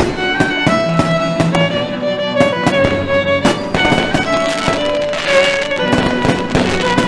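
Fireworks going off in a string of sharp bangs with a crackling burst about two-thirds of the way through, over music with a violin melody.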